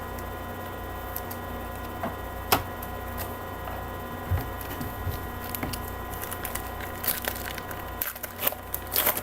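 A trading card pack's wrapper being crinkled and torn open, with the cards handled, as scattered small clicks that thicken into a run of crackling from about seven seconds in. A steady electrical hum lies underneath.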